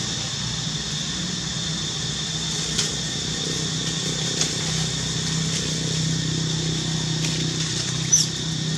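Steady low mechanical hum, like a running motor, with a few faint clicks and one short high squeak about eight seconds in.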